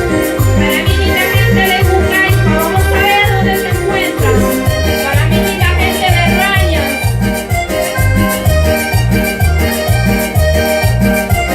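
Latin American dance music played loud, with a steady bass beat and a wavering melody line over it through roughly the first two-thirds.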